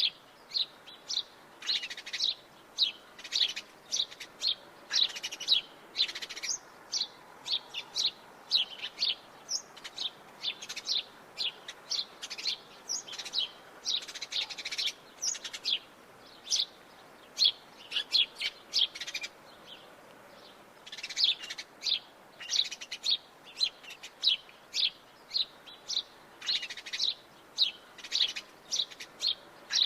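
House sparrows chirping: short, sharp chirps in quick, irregular runs, with a brief lull about two-thirds of the way through.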